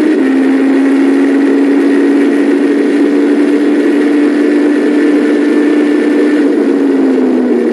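Super Formula single-seater's 2-litre turbocharged four-cylinder engine, heard onboard, held at steady high revs with a thin high whine over it. Near the end the whine fades and the engine note begins to fall as the car slows.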